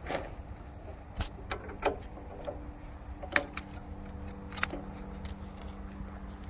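Scattered sharp metal clinks and knocks of sawmill parts being handled and pulled loose during unpacking, about six in all, the loudest about halfway through, over a steady low hum.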